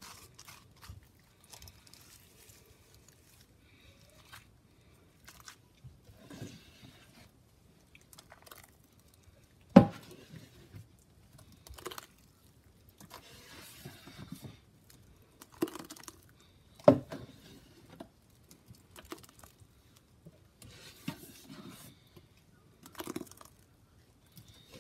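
Thick, wet Comet-and-Pine-Sol cleanser paste being stirred and pressed through a metal mesh strainer: intermittent soft squishing and scraping. Two sharp knocks stand out, the loudest about ten seconds in and another about seventeen seconds in.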